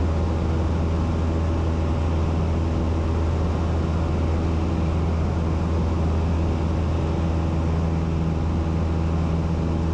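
Cessna light aircraft's piston engine and propeller droning steadily, heard inside the cabin, with a deep even hum that holds its pitch throughout.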